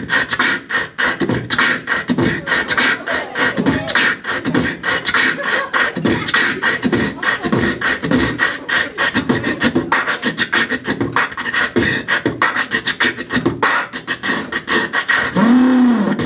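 Beatboxing into a handheld microphone: a fast, dense run of mouth-made kick, snare and hi-hat clicks, with a short hummed note that rises and falls near the end.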